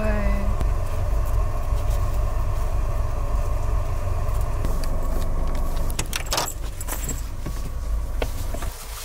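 A Land Rover Defender's engine idling, a steady low rumble heard from inside the cabin, with a few rattles and clicks about six to seven seconds in. The rumble drops away suddenly near the end.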